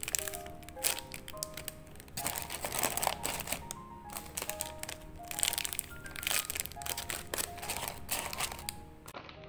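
Clear plastic bags crackling and crinkling in bursts as bagged squishy toys are handled and packed into a cardboard box with shredded paper filler, over light background music.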